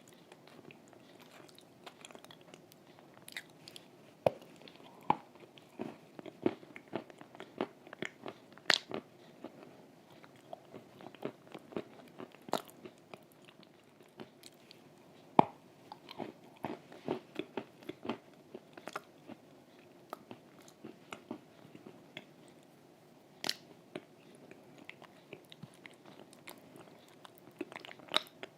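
Close-up biting and crunchy chewing of brittle food: irregular crisp cracks and crackles, with a few louder snaps among the quieter chewing.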